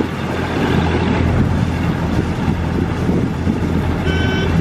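Passenger boat's engine running steadily under way, a constant low drone with wind on the microphone. A thin high tone joins near the end.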